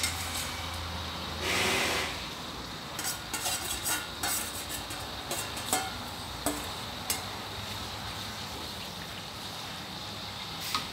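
Pieces of sun-dried beef being scraped from a stainless steel bowl into a wok of oil that is only starting to get hot, frying with a steady sizzle. There is a short louder hiss about a second and a half in, then a run of metal clinks and taps as a spatula scrapes the bowl and stirs in the wok.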